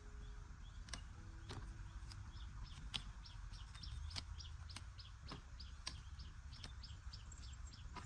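A bird chirping outdoors: a quick series of short, high chirps about three a second, with sharp clicks scattered through and a low rumble underneath.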